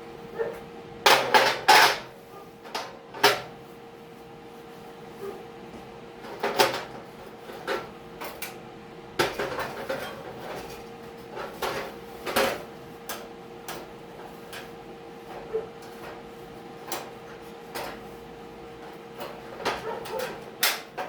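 Irregular metallic knocks and clinks from hand tools striking sheet-metal door work, with a cluster of three loud strikes about a second in. A steady faint hum sits underneath.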